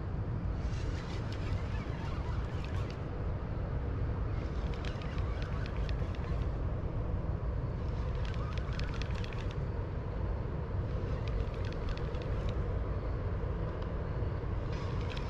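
Fishing reel cranked in short bursts of fast clicking, about every three to four seconds, as a hooked catfish is reeled in. A steady low rumble runs underneath.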